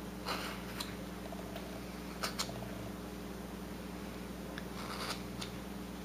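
A whittling knife slicing wood on a small carved bird: a handful of short paring cuts, two sharp ones close together a little over two seconds in. A steady low hum runs underneath.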